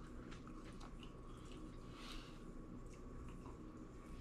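Faint chewing and biting on a chicken wing: scattered small wet smacks and clicks over a low steady hum.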